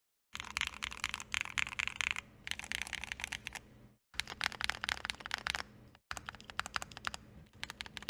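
Typing on a CannonKeys Vicious40 40% keyboard with a CNC aluminium case, in quick runs of key clacks, with the tape mod applied. The typing comes in several stretches, broken twice by abrupt silent cuts.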